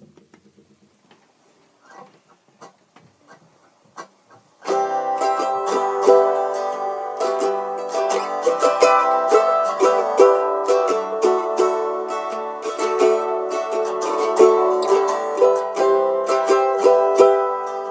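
Mandolin played solo: a few faint plucks for the first few seconds, then about five seconds in a loud, busy picked tune with chords starts and carries on.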